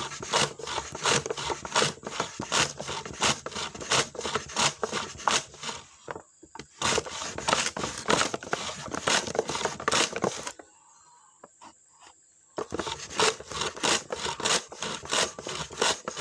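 Hand-pushed wooden shallot slicer, its wooden pusher block slid rapidly back and forth across the blade in its wooden frame, shallots being sliced. Scraping wood-on-wood strokes at about three a second, stopping briefly twice, once for about two seconds.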